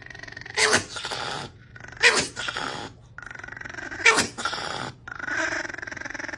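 Small black-and-white Chihuahua growling with bared teeth, broken by three sharp barks about two seconds apart, then a steady growl: a warning to keep the person filming away from the woman it is guarding.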